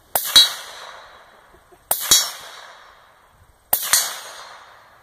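Gunshots in three quick pairs about two seconds apart, each pair two sharp reports close together that then fade out.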